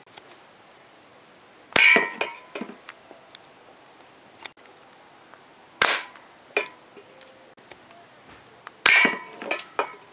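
Colt 25 spring-powered airsoft pistol firing three shots, about four and three seconds apart. Each shot is a sharp snap followed by a few lighter clicks.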